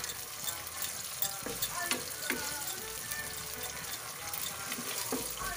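Corned beef frying with garlic in a pan, crackling and sizzling steadily, with a spatula scraping and knocking against the pan a few times as it is stirred.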